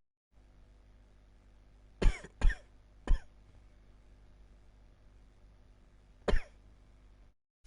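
A person coughing hard: three sharp coughs in quick succession about two seconds in, then a single cough near the end.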